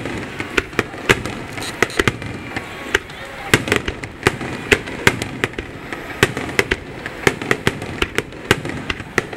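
Fireworks going off: a quick, irregular series of sharp bangs, about two to three a second, over a steady background of crowd voices.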